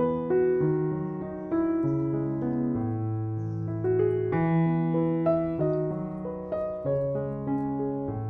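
Background music played on piano or electric piano, a gentle melody over sustained bass notes.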